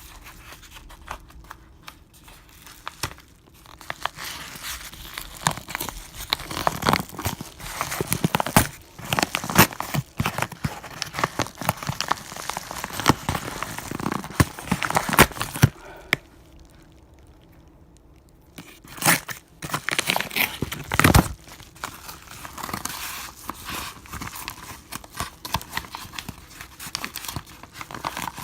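Product packaging being torn open and crinkled by hand: irregular rustling, crackling and tearing. The handling is busiest in the middle, with a brief lull, then a few sharper crackles.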